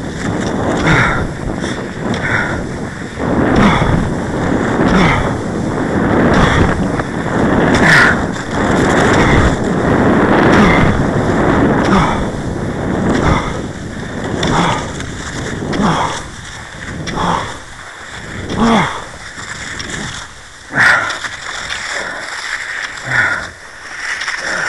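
Cross-country skiing: the swish and crunch of skis and poles in snow in a rhythm of about one stroke a second, with rubbing and wind noise on the camera's microphone. The sound is busier in the first half and sparser later.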